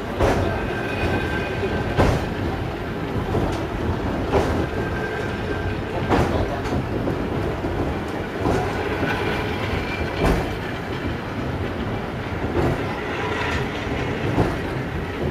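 Myoken Cable funicular car running down its track: a steady rumble with a sharp clack every two seconds or so as the wheels run over the rails, and a faint wheel squeal.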